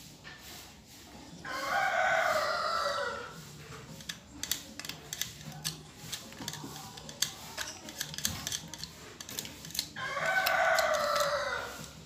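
A rooster crowing twice, each crow about two seconds long and dropping in pitch at the end. Light clicks and taps come between the crows.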